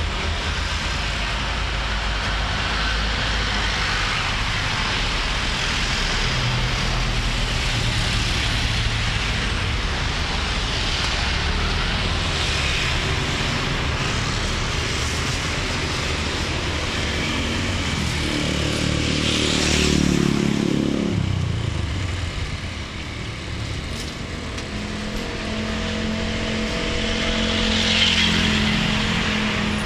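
Roadside traffic: a steady hum of running vehicles, with one vehicle passing about twenty seconds in, its pitch falling as it goes by, and a steady engine hum near the end.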